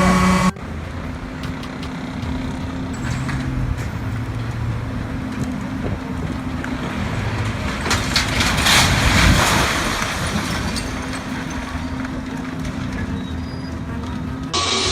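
A motor vehicle running, a steady low engine hum with road noise, growing louder for a couple of seconds about two-thirds of the way through.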